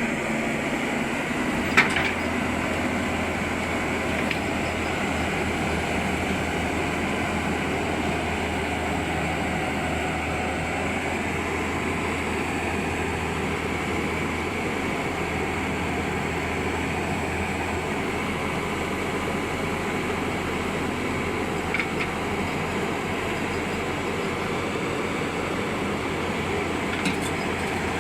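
Excavator's diesel engine running steadily at a constant pitch, with three isolated sharp knocks, one about two seconds in and two more near the end.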